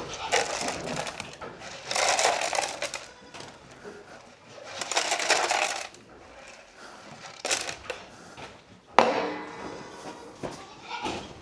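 Dry grain feed poured into a feed can in three pours of about a second each, with a single sharp knock about nine seconds in.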